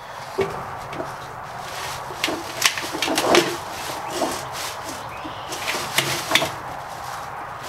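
Scattered metallic knocks, clicks and clunks as parts are handled inside a stainless steel chicken-plucker drum lined with rubber fingers. The loudest clatter comes about three seconds in, with two more sharp knocks near six seconds.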